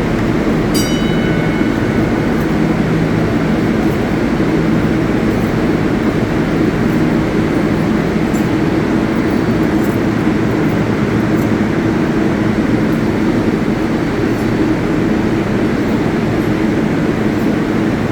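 New York City subway 7 train running with a steady rumble and hum, with faint regular ticks about every second and a half. A brief high-pitched tone sounds about a second in.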